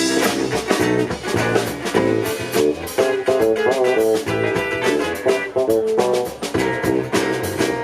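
Live band playing an instrumental passage: guitar to the fore over a steady drum beat.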